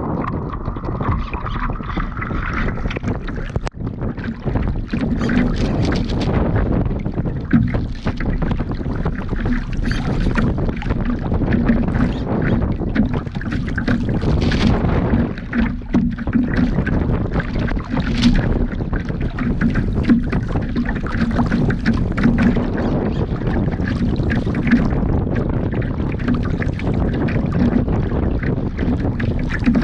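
Water rushing and splashing against the hull of a radio-controlled Laser model sailboat heeled over in choppy water, heard from a camera on its deck, with spray breaking over the bow and wind buffeting the microphone. The sound is continuous, broken by frequent short splashes.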